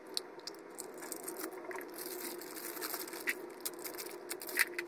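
Plastic gashapon capsule being handled and opened, then the clear plastic bag inside crinkling: many small sharp crackles and clicks over a steady low hum, with one louder click near the end.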